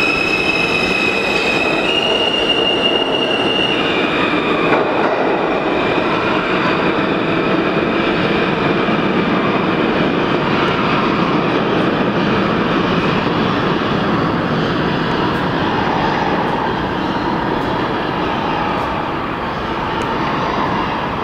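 R160A subway train pulling out of a station: its traction motors whine in rising steps for the first few seconds. After that, the rumble and clatter of steel wheels on rail carry on as the train pulls away into the tunnel, fading slightly near the end.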